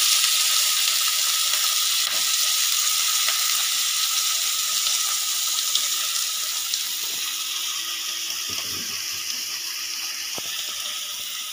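Shallots, garlic, green chillies and coriander sizzling in a little hot oil in a kadai, a steady hiss that slowly dies down.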